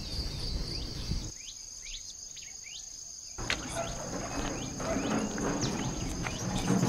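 Steady high-pitched drone of insects, with a few short falling chirps about two seconds in.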